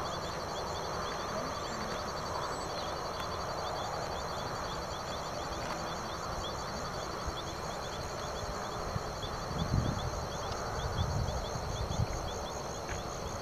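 Open-field ambience at dusk: a steady chorus of insects calling in high, rapidly pulsing trills, with a low rumble of wind underneath that swells a few times near the end.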